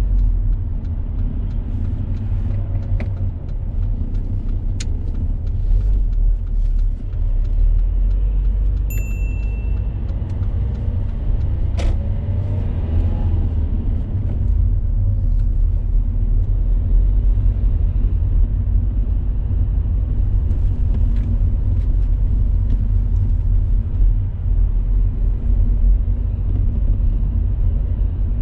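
Car cabin noise while driving: steady low rumble of engine and tyres on the road, with a few faint clicks and a brief high beep about nine seconds in.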